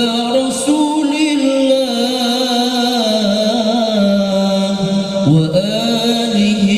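Male qari reciting the Quran in the melodic tilawah style, with a high voice. He holds one long phrase with wavering ornaments and lets it sink slowly in pitch. About five seconds in he breaks off briefly and opens a new phrase with an upward slide.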